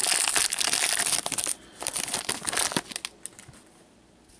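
Foil wrapper of a hockey trading-card pack crinkling as it is handled. The crinkling is dense for about the first second and a half, then comes in scattered crackles that stop about three seconds in.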